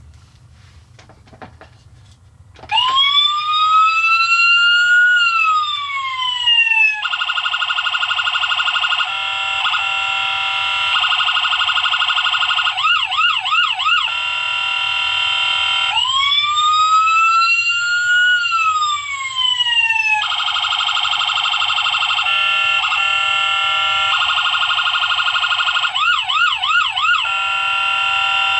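Electronic police siren sounds starting about two and a half seconds in, after a few faint clicks: a wail that rises and then falls, a steady warbling multi-tone pattern, and quick yelps, the whole sequence repeating about every 13 seconds. The sound is thin, with no low end.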